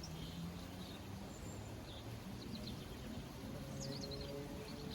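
Small garden birds twittering, with short high chirps scattered through, over a steady rush of water from a garden waterfall.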